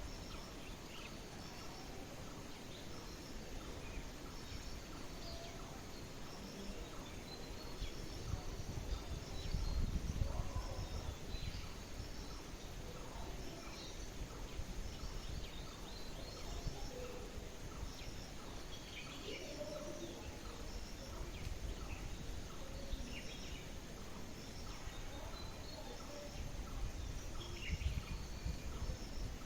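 Rural outdoor ambience: songbirds chirping now and then over a steady background hiss, with a short high repeated chirp early on. A low rumble swells up about ten seconds in and again near the end.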